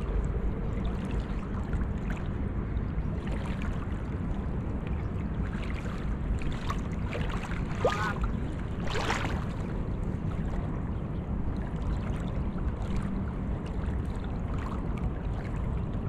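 Water sloshing around a person wading waist-deep while gathering a wet cast net, over a steady low rumble, with a few brief splashes and drips, the clearest about nine seconds in.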